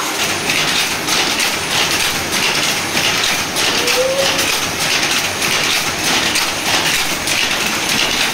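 Sridharan jacquard power loom weaving at full speed: a loud, steady mechanical clatter with a regular beat of about two strokes a second.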